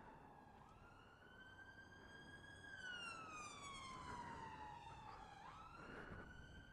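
Faint emergency-vehicle siren wailing: a rise in pitch, a slow fall lasting a few seconds, then a quick rise again.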